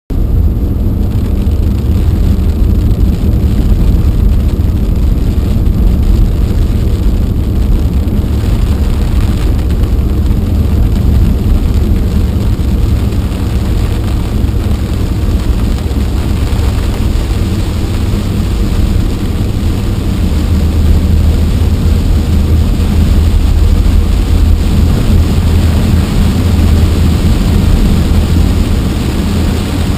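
Steady low rumble of a car driving on a wet road in heavy rain, heard from inside the car, with a fainter hiss of rain and spray over it.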